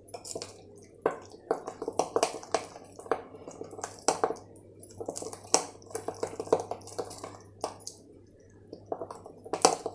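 A metal spoon stirs a thick yogurt and spice marinade in a ceramic bowl. The spoon scrapes and clicks against the bowl in a quick, irregular series, with wet squishing from the paste, and one louder knock comes near the end.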